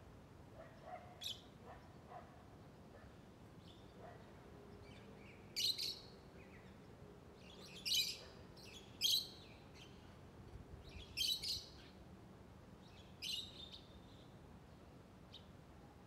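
Lovebird chirping: short, sharp, high-pitched calls, some single and some in quick pairs, with a few quieter chirps in the first seconds.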